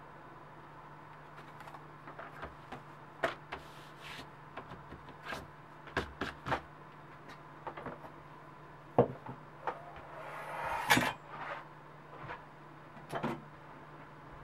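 Scattered light taps, clicks and knocks of objects being handled on a work surface, with a brief rustle about eleven seconds in, over a steady low hum.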